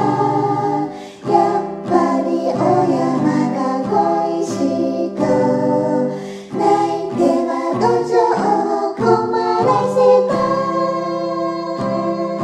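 A female two-part chorus sings a Japanese children's song (dōyō) in harmony, with guitar accompaniment. The last phrase ends in long held notes.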